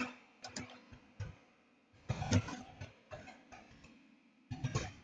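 Computer keyboard keys being typed: faint, irregular clicks, with small clusters about two seconds in and near the end.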